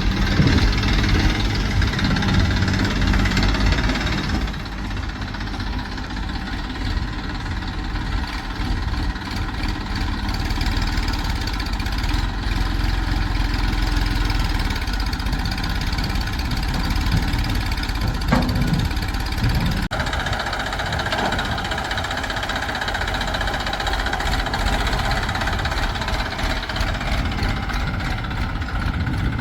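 Diesel engine of heavy farm machinery running steadily with a low, even drone, easing down a little about four seconds in.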